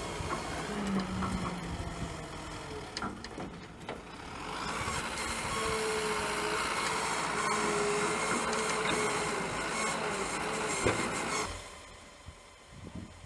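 TVEKS EK-14 wheeled excavator working its engine and hydraulics while digging, the engine rising in level about four to five seconds in with a faint steady whine over it, then dropping away suddenly near the end.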